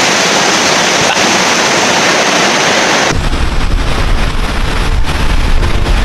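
Steady hissing rush of a waterfall. About three seconds in it cuts to wind buffeting the microphone with a heavy low rumble.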